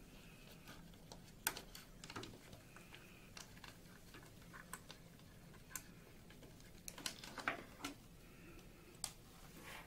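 Scattered small clicks and taps of plastic and fiber being handled as white fiber pigtails are routed around a plastic splice tray and tucked into its clips, with a sharper cluster of clicks near the end.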